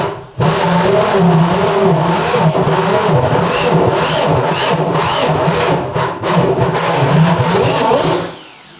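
Electric drill running under load, boring a hole through a wooden door for a door knob, its motor whine wavering in pitch as the bit bites.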